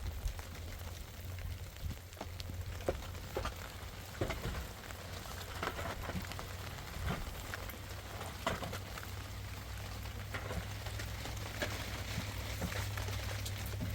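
Rain falling, with scattered drops ticking sharply over a steady low rumble.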